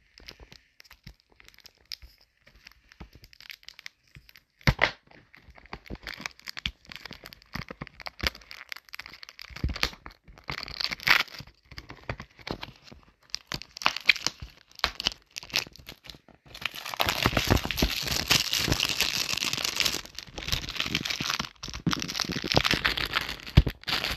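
Plastic shrink-wrap being torn and peeled off a Blu-ray case. Scattered crackles and snaps come first, then about two-thirds of the way in a long stretch of steady, louder crinkling, with one short break.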